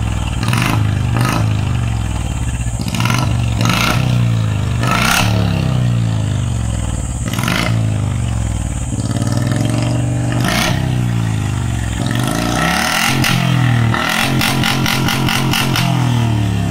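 Royal Enfield Bullet Standard BS6 single-cylinder engine running at standstill through a short-bottle silencer. It is given several quick throttle blips, then revved up and down about twelve seconds in.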